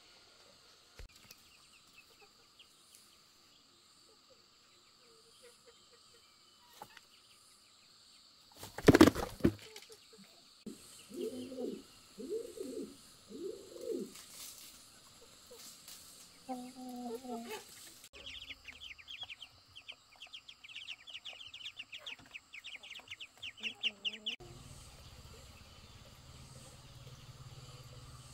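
Chickens: a loud burst of wing flapping about nine seconds in, then a rooster's three short low clucking calls and another a little later, followed by a rapid high-pitched chirping trill lasting several seconds.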